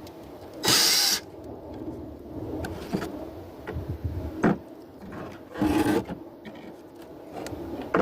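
Wooden hive boards scraping and knocking as they are handled: two short, loud rasping scrapes, about a second in and again near six seconds, with light knocks between.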